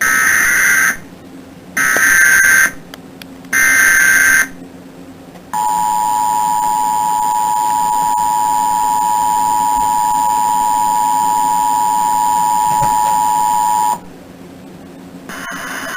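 Emergency Alert System header: three short bursts of warbling SAME data tones about a second apart, then the two-tone attention signal (853 and 960 Hz together) held steadily for about eight seconds. The signal announces a severe thunderstorm warning.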